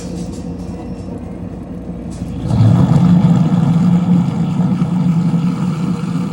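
Kitchen sink garbage disposal running with a steady motor hum, growing louder and harsher about two and a half seconds in as it churns through a cleaning pack with a trickle of water.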